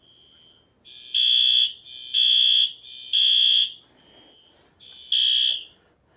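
Fire alarm horns sounding in the temporal-three evacuation pattern: three half-second blasts, a pause, then the next group starting near the end, with a fainter tone lingering between blasts.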